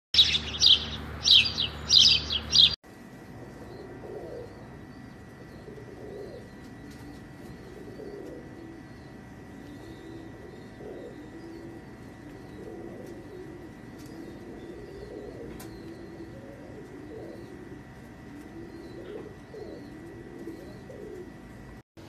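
A loud intro sting of repeated swooshes for about the first three seconds, then red-saddled fantail pigeons cooing over and over, low rising-and-falling coos, with faint high chirps behind them.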